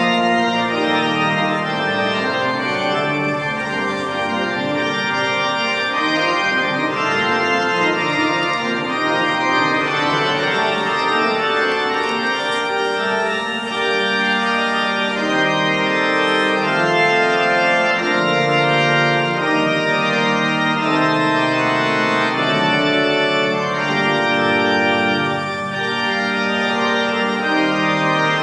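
The restored Tornaghi pipe organ being played, several held notes sounding together and changing as the music moves on, at a steady level.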